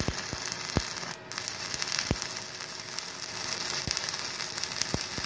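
Stick-welding arc from an LB electrode on a Multipro EG 200A SC inverter welder, giving a steady sizzling crackle with frequent sharp pops. The sound briefly drops about a second in.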